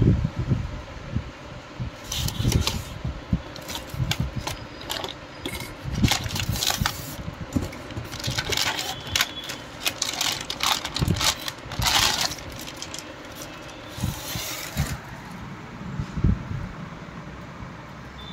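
Unpacking a motherboard by hand: the cardboard box handled and a plastic anti-static bag crinkling and rustling in irregular bursts as the board is slid out, with dull knocks and bumps of handling. The crinkling stops about fifteen seconds in, leaving only soft knocks.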